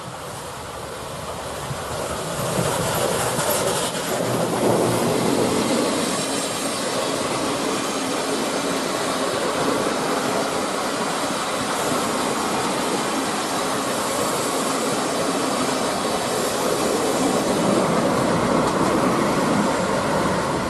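Train rolling past close by: a broad wheel and rail noise that builds over the first few seconds and then holds steady and loud.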